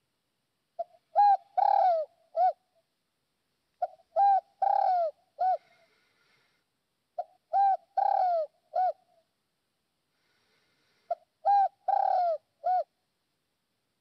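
Spotted dove cooing: four phrases, one about every three and a half seconds, each a short note, then two longer curving coos, then a short closing note.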